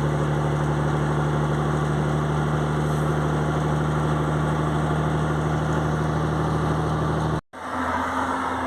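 Truck's diesel engine running steadily while driving at cruising speed, a constant drone; the sound cuts off suddenly near the end.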